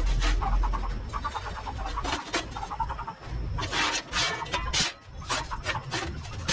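Welded steel window-guard frames being handled on a perforated steel welding table: irregular clanks and knocks with scraping as the frames are lifted, set down and slid across the steel top.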